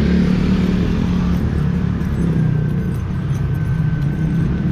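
Vehicle engine running with a steady low hum while moving slowly along a street, with road noise. A faint thin high tone sounds for a couple of seconds in the second half.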